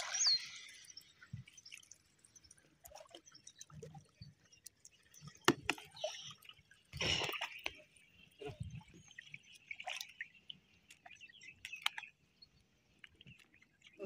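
Water splashing and dripping in short, scattered bursts as hands gather and lift a wet seine net in shallow river water, with birds chirping faintly.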